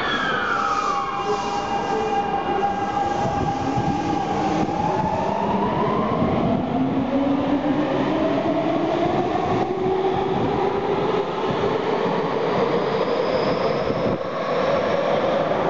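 Tokyu 2000 series electric train pulling away from the platform. Its VVVF inverter and traction motors whine: a falling tone settles onto a steady note, then from about five seconds in several tones rise steadily as the train gathers speed, over growing wheel and running noise.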